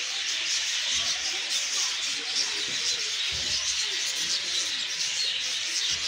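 A dense, unbroken chorus of high-pitched chirping and twittering from many birds in zoo aviaries.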